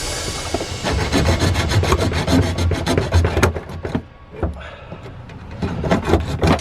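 A saw cutting through PVC pipe with quick, rasping back-and-forth strokes, getting quieter and sparser about four seconds in.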